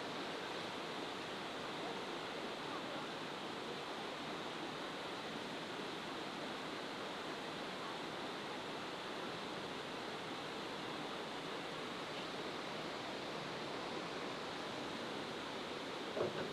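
Steady, even rush of water from the waterfall and river, with one brief sharper sound near the end.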